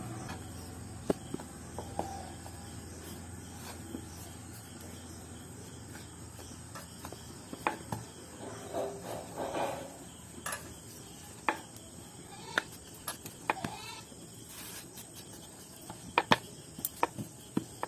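Wooden rolling pin rolling out paratha dough on a round wooden board: soft rolling and rubbing with scattered light knocks and clicks of the pin against the board, over a faint steady high tone.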